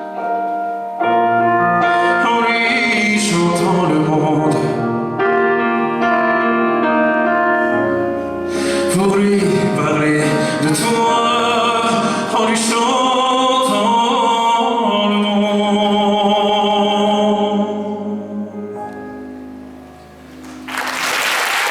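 Live pop song finishing: a voice sings without words over instrumental accompaniment. The music dies away, and audience applause breaks out about a second before the end.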